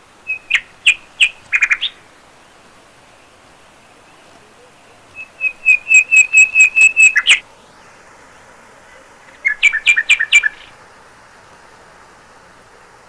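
A bird calling in three short bursts of rapid, repeated sharp notes. The middle burst is the longest and loudest, and the last sits slightly lower in pitch.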